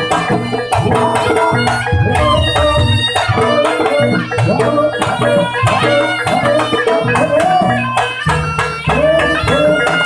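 Javanese jaranan gamelan accompaniment: a fast pattern of hand-drum (kendang) strokes that bend in pitch, under held melody notes.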